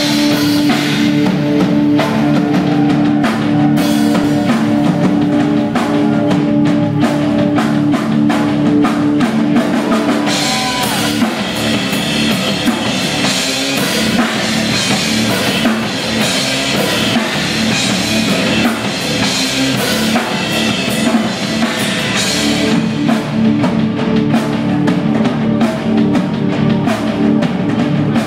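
Live progressive rock band playing loud on drum kit, electric guitar, bass guitar and keyboards. Held notes ring through the first ten seconds and again near the end, with busier cymbal playing in between.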